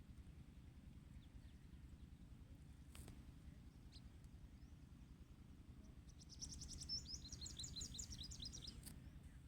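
Low steady hum, then a bird twittering: a quick run of short, high chirps lasting about two and a half seconds, starting about six seconds in.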